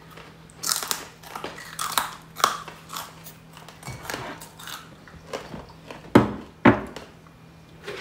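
Close-up crunching and chewing of hard kerupuk crackers: a string of crisp bites, with two louder crunches about six seconds in. A faint steady hum runs underneath.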